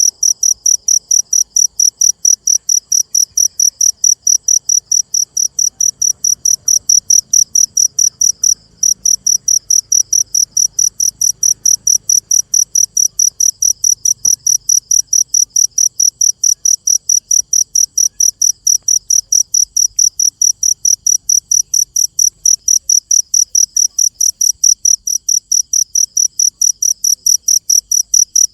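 A cricket chirping loud and steady, a high-pitched chirp repeated about four times a second, with one brief break about eight seconds in.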